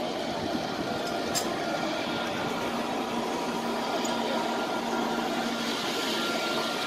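Steady din of a huge crowd of pilgrims on the move, with a faint steady hum underneath.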